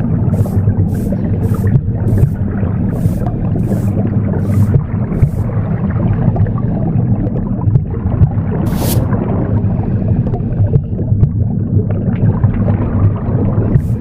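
Womb sound, a steady low whooshing rumble, mixed with swishing broom-sweeping strokes. The strokes come about two a second for the first five seconds, then once more near nine seconds.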